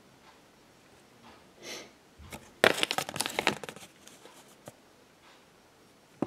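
Thin paper Kinder Surprise leaflet being unfolded and handled: a soft rustle, then a burst of crackling about two and a half seconds in that lasts about a second, with a few light clicks after.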